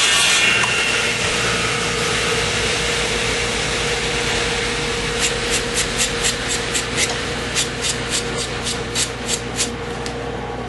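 Woodshop power machinery running steadily with a hum and hiss just after a radial arm saw crosscut, fading slightly. Midway comes a run of about fifteen light, sharp clicks, some three a second, as the freshly cut wooden piece is handled.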